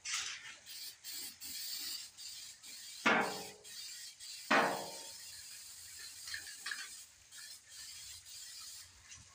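Aerosol spray-paint can rattling with quick ticks of its mixing ball, then short hisses of paint spray. Two sudden louder sounds come about three and four and a half seconds in.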